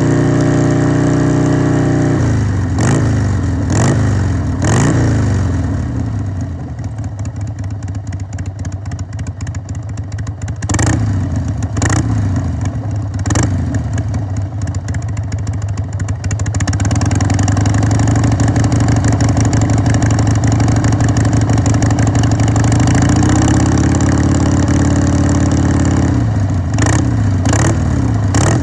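2002 Harley-Davidson Sportster XLH883's rigid-mounted, carbureted, air-cooled OHV V-twin running on its dry exhaust note, blipped by hand at the throttle. It settles from a faster idle, gives three quick revs, idles, gives three more quick revs near the middle, runs at a higher steady speed for several seconds, eases back, and gives three more quick revs near the end.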